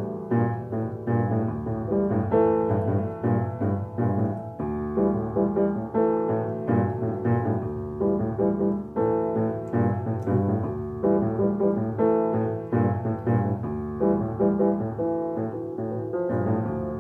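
Piano music playing: a steady stream of notes with frequent new chords.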